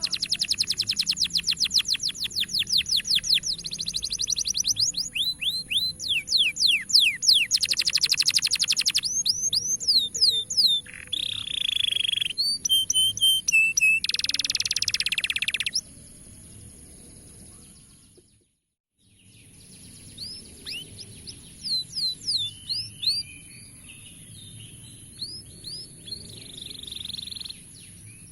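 Domestic canary singing loud, fast trills and chirps. The song fades out for about a second around two-thirds of the way through, then comes back as quieter, sparser chirps.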